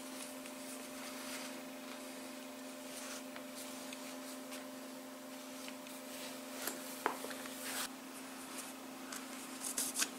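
Cotton cord rubbing and rustling as macramé knots are tied by hand, with a few sharper clicks and rustles in the last few seconds, over a steady hum.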